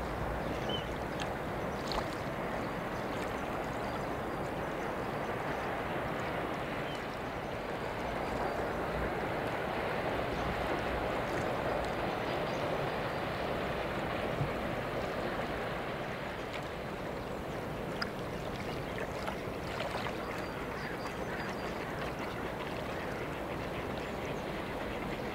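Steady rushing water from a passing superyacht's bow wave and wake, swelling a little in the middle.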